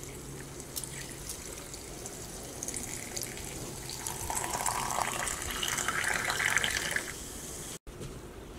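Sparkling water poured in a steady stream into a glass pitcher, fizzing and splashing. The pouring tone rises in pitch as the pitcher fills, and the pour stops suddenly about seven seconds in.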